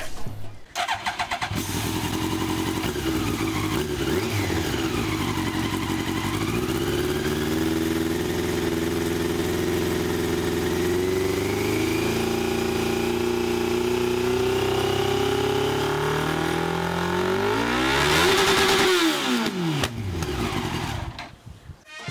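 Yamaha R1 motorcycle's inline-four engine, its silencer stuffed with airsoft BBs, cranks and catches after about a second, then idles with its pitch slowly rising. Near the end it is revved sharply once, up and back down, the loudest moment, and then cuts off.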